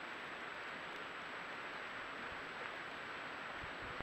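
Steady hiss from a trail camera's microphone, with a thin high-pitched electronic whine over it. A few soft low thuds come near the end.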